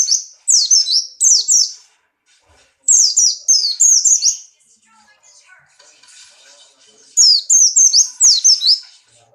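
Pleci, a white-eye of the buxtoni form, singing hard in fast bouts of high, down-slurred chirping notes, with a pause of a few seconds in the middle. This is the loud, driven song of a male in breeding condition.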